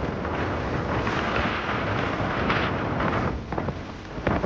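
Wind buffeting the microphone on a moving boat: a loud, steady rumble over the rush of water along the hull, with a few sharp crackles near the end.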